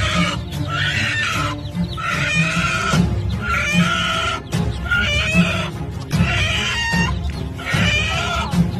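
Music with a steady beat and chicken clucking over it, one short call roughly every two-thirds of a second in time with the beat.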